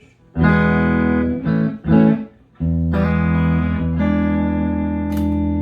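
Electric Stratocaster with Fatpups Crossroads single-coil pickups, two pickups combined, played clean through a 5E3 Tweed Deluxe tube amp. A strummed chord is held about a second, then two short chord stabs, then a long chord left ringing.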